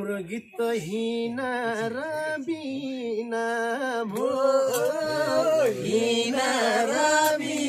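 Male voices singing a slow Nepali song unaccompanied, holding long, wavering notes with short breaks between phrases.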